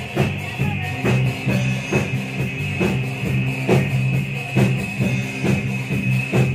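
Live rock band playing amplified: electric guitar, electric bass and drum kit, with drum hits about twice a second over a steady bass line.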